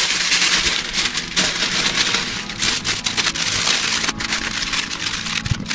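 Aluminium foil being folded over and crimped shut into a parcel by hand: a dense, continuous run of crinkling and crackling.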